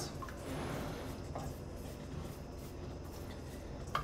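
Wooden spoon stirring thick melting cheese fondue in a stainless steel pot, faint scraping with a few light taps against the pot, over a low steady hum.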